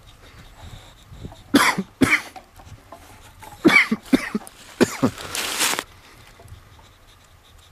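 A man gagging and coughing at the stench of a freshly opened can of surströmming (fermented herring): about five short retching heaves through the middle, then a longer breathy rasp.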